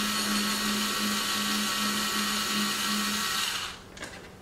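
Small cordless electric screwdriver running steadily at one speed, backing out a T20 Torx screw. It stops suddenly about three and a half seconds in, followed by a few faint clicks.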